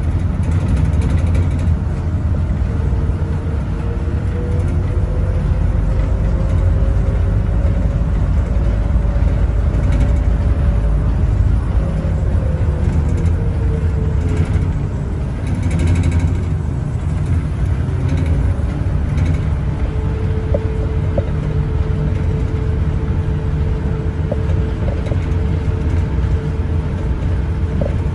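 Bukit Panjang LRT rubber-tyred people-mover car running along its elevated guideway, heard from inside: a steady deep rumble with a motor whine that rises in pitch over the first ten seconds, dips a little past the middle, then holds steady.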